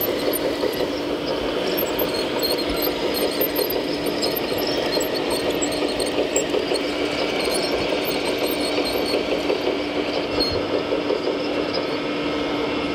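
Scale RC model of a Liebherr 960 hydraulic excavator running: a steady hum with a fast fluttering buzz, and light clicks scattered over it.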